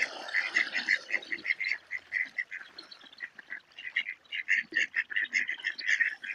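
A flock of ducks calling, a rapid stream of short calls several a second, with a brief rush of noise in the first second.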